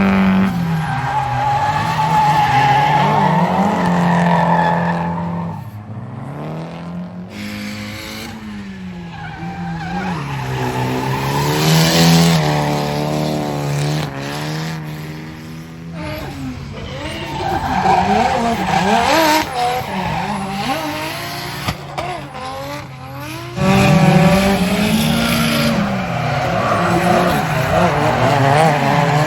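Drift cars' engines revving hard, their pitch swinging up and down again and again with the throttle, over the hiss and squeal of sliding tyres. The sound changes abruptly a few times as one pass gives way to another.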